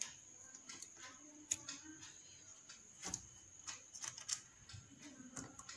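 Faint, scattered clicks and taps of hands handling wires and fitting them at the screw terminals of a switchboard's switches, over a faint steady high whine.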